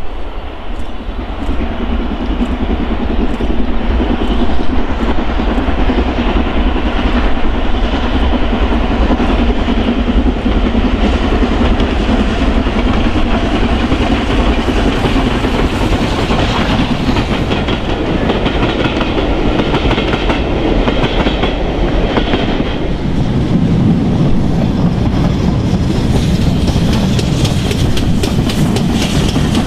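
Two steam locomotives double-heading a passenger train, working hard with rapid, regular exhaust beats and the rumble and clatter of wheels on the rails. The sound grows louder and fuller near the end as the engines come close and the carriages pass.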